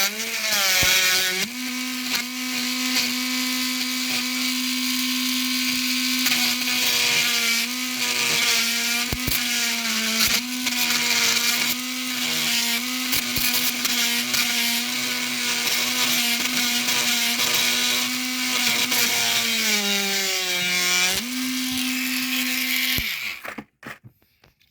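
Small high-speed power tool with a tiny drill bit running steadily, drilling out the pin that holds an airsoft P90's muzzle brake. Its pitch drops under load about a second in and again near the end, and it stops shortly before the end.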